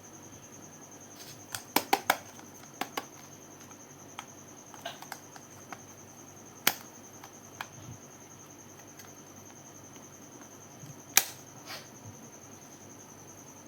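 Sharp, scattered clicks and taps of plastic makeup packaging being handled: a quick cluster about two seconds in, softer ones after, and two louder single clicks later on. Under them is a steady faint high-pitched whine.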